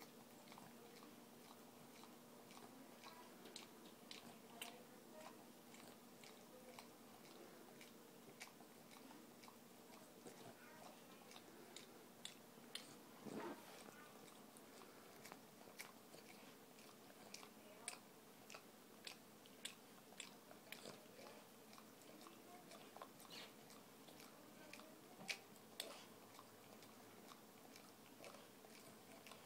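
Boston terrier licking another dog's mouth: a run of faint, irregular wet tongue-and-lip clicks and smacks, a few a second, with a few louder ones.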